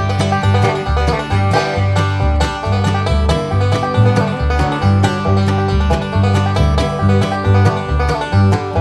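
Background bluegrass-style music: banjo and guitar picking over a bass line with a steady beat.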